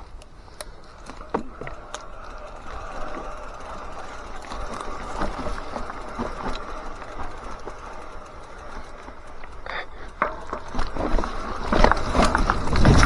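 Mountain bike riding down a damp dirt trail: tyres rolling on the ground, with scattered knocks and rattles from the bike. The noise grows much louder near the end.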